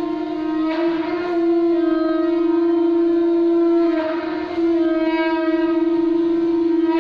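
Conch shell (shankha) blown in long, steady notes, with short breaks for breath about a second in and about four seconds in.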